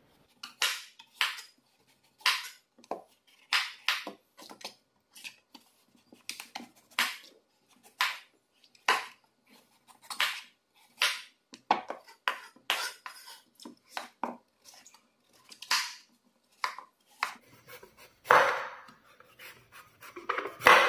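Chef's knife slicing raw pumpkin into pieces on a wooden cutting board: short knocks of the blade cutting through and meeting the board, irregularly about one or two a second, with a longer scrape near the end.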